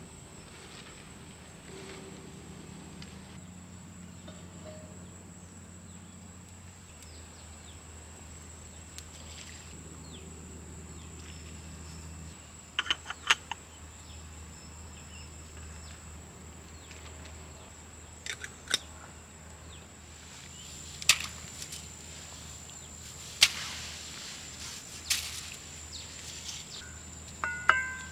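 Steady high-pitched insect chirring, with a handful of sharp clicks and knocks in the second half, the loudest single knocks about two thirds of the way through.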